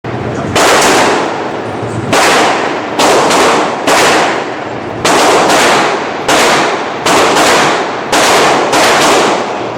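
Pistol-calibre semi-automatic gunfire from a Kriss .45 ACP or a Glock 17 9mm: about a dozen single shots at an uneven pace, one every half second to a second and a half, each trailing a long echo.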